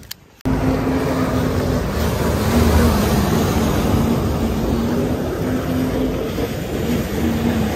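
Jet ski running at speed across choppy water: a steady engine drone with a slightly wavering pitch over the rush of water and spray. It cuts in suddenly about half a second in.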